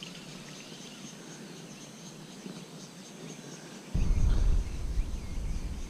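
Insects trilling faintly with a steady high note. About four seconds in, a loud low rumble on the microphone starts suddenly and drowns them out.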